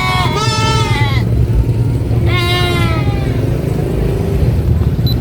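Livestock bleating: a wavering call in the first second and a shorter one about two and a half seconds in, over a steady low rumble.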